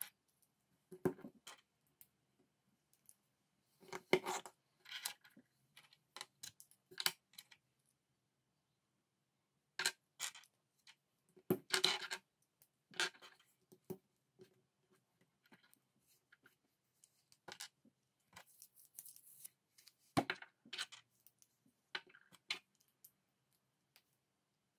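Lego plastic parts clicking and tapping as minifigures are pressed together and set down on a hard tabletop, in scattered irregular clicks with short pauses between them.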